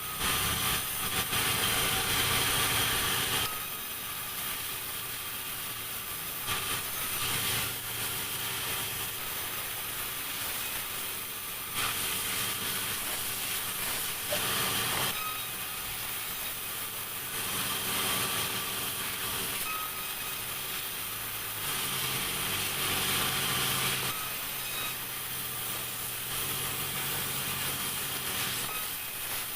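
Sawmill saw running steadily and cutting through timber in repeated passes. Each cut lasts two to three seconds and is louder and hissier, about every four to five seconds.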